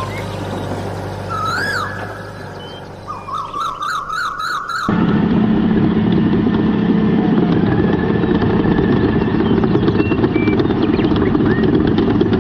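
A warbling, siren-like tone wavers up and down for the first few seconds. About five seconds in, it cuts off abruptly to a loud, steady, fast-pulsing engine or motor running.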